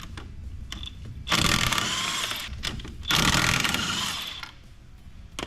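Power wrench run in two bursts of about a second and a half each, with a slightly rising whine, spinning lug nuts on a side-by-side's wheel.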